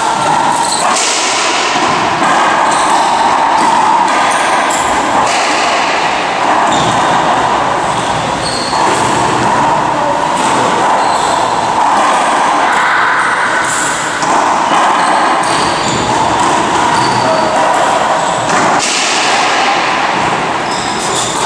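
Racquetball rally: the ball being struck by racquets and smacking off the court's walls and wooden floor again and again, sharp cracks that ring in the enclosed court.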